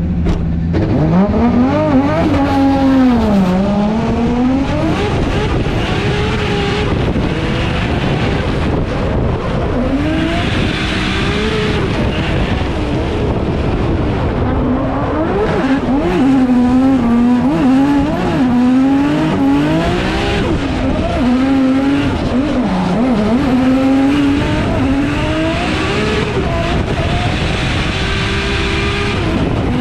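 Drift car's engine revving hard through a run, its pitch rising and falling again and again with the throttle, while the tyres squeal through the slides.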